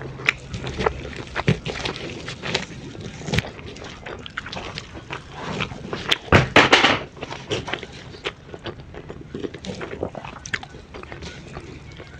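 Close-miked mukbang eating sounds: chewing and mouth sounds with irregular crisp clicks, growing louder and denser for about a second around six seconds in.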